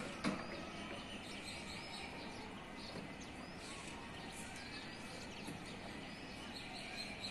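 Steady outdoor town background noise with scattered small bird chirps throughout, and one sharp knock just after the start.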